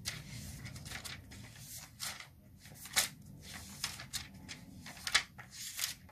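Paper pages rustling and flicking in short, sharp swishes, roughly one a second, as a book is leafed through to find a passage, over a faint steady low hum.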